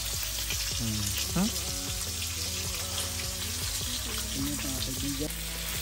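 Steak frying in a pan on a propane camp stove: a steady sizzle with fine crackling.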